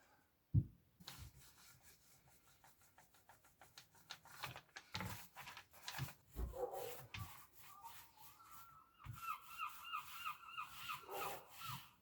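Paintbrush strokes scrubbing acrylic paint onto an MDF cut-out, a quick series of short rubbing scrapes. Near the end a bird calls in a fast run of about ten repeated chirps.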